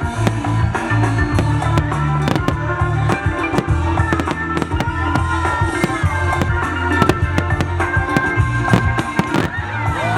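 Fireworks display: many bangs and crackles of bursting shells in quick succession, with music playing underneath.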